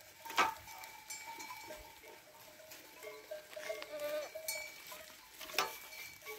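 Metal goat bells clinking and ringing faintly as a large herd of goats browses on pruned olive branches, with a couple of sharper knocks and a faint bleat around four seconds in.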